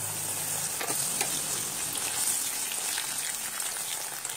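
Raisins deep-frying in hot oil in a kadai: a steady sizzling hiss of bubbling oil, with a few light clicks.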